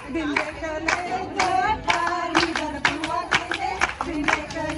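Group of women singing a Punjabi folk song and clapping a steady beat together, the handclap rhythm of a giddha dance.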